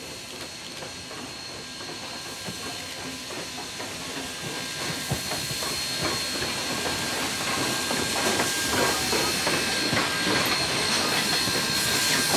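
Steam locomotive passing close by, hissing steadily, with a clatter of clicks and knocks from its wheels and running gear on the rails; it grows louder as it approaches.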